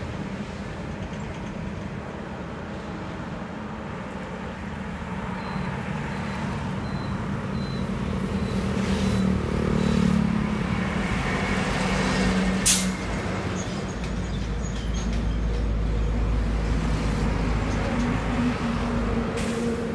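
Highway traffic: cars and trucks passing one after another, with steady tyre and engine noise that swells as a light box truck goes by about halfway through. A brief sharp burst of noise cuts through a few seconds later, and a deeper rumble comes in near the end as a heavy lorry passes.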